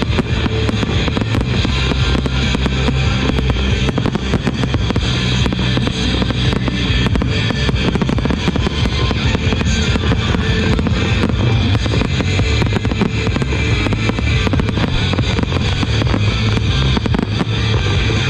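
Loud rock music with guitar and drums, with fireworks going off throughout as many sharp cracks and pops over it.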